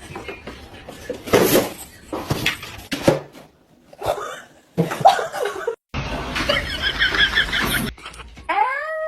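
Pet sounds and laughter in short clips cut together. Near the end, an animal gives one long call that rises and then falls in pitch.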